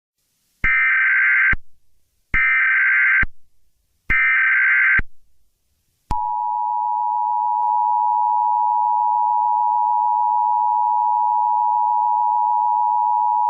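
Emergency Alert System broadcast tones. First come three identical short bursts of SAME header data, each a rapid warbling tone a little under a second long with short gaps between. Then, about six seconds in, the steady two-tone EAS attention signal begins.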